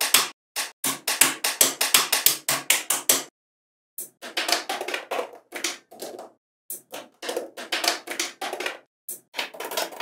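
Small magnetic balls clicking and snapping against one another in quick runs of sharp clicks, several a second, broken by short stretches of complete silence.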